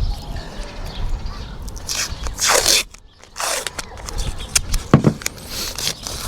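Scraping and knocking from hand work on a van roof while solar panel brackets are sealed and fixed down, with a sharp knock about five seconds in.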